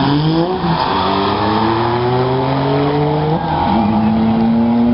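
C5 Corvette's V8 at full throttle on a drag-strip launch, alongside the other lane's car. The engine note climbs, drops sharply at an upshift under a second in, climbs again, and drops at a second upshift about three and a half seconds in.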